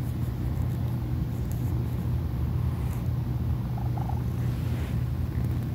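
Domestic cat purring steadily: a continuous low rumble with a fine fast flutter.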